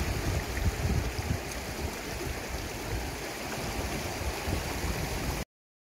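Shallow rocky river flowing over stones: a steady rushing of water with a heavy low rumble underneath. The sound cuts off abruptly about five and a half seconds in.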